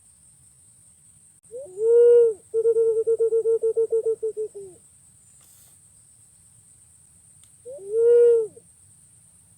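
Punai pink green pigeon calling: a drawn-out whistled note, then a fast stuttering run of about eight notes a second lasting some two seconds, then another drawn-out note near the end.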